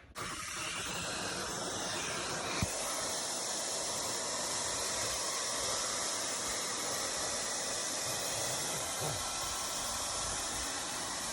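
Portable carpet spot cleaner running: a steady motor-and-suction hiss that comes on at once and holds level, with a single brief knock about two and a half seconds in.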